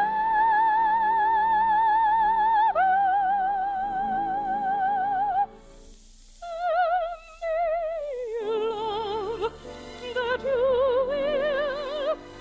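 Operetta music with orchestra: a high melody line with wide vibrato, two long held notes, a brief break about five and a half seconds in, then a falling phrase and a rising one.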